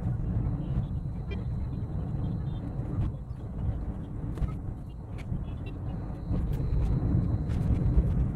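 Steady low road rumble of a car driving in city traffic, heard from inside the car, with a few faint clicks.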